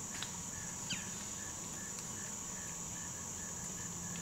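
Insects chorusing in the woods: a steady high-pitched drone with a softer, even chirping beneath it at about five chirps a second. A faint low hum sits under it, and two brief short chirps come early in the first second.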